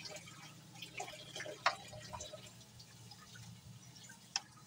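A spoon scooping thick, freshly cooked rice kheer out of a pot into a dish: soft wet plops and a few sharp taps of the spoon on pot and dish, the loudest a little over a second and a half in. Under them runs a low steady hum.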